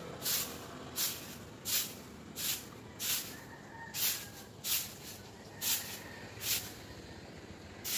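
Broom sweeping a wet concrete floor: a run of brisk swishes, about ten strokes, roughly one every three-quarters of a second.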